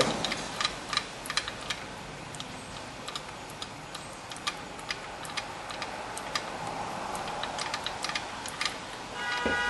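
Star-wheel adjuster of a 2000 Honda CR-V's rear drum brake clicking tooth by tooth as it is turned to back off the brake-shoe adjustment. The light clicks come irregularly, about one to three a second, and there is a brief high squeak near the end.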